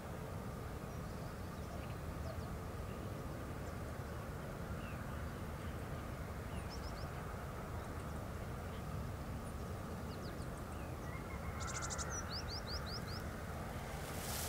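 Small birds giving short high chirps here and there, with a quick run of five falling notes near the end, over a steady low outdoor background rumble. A brief rustle right at the end.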